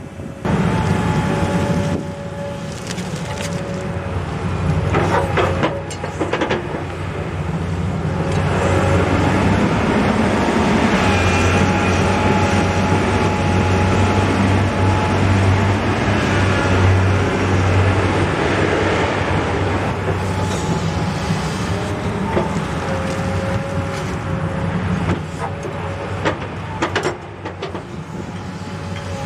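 Komatsu PC200 hydraulic excavator digging with a tilt bucket: its diesel engine running under load with a steady whine from the hydraulics, the engine heaviest through the middle, and a few sharp clanks from the bucket and linkage.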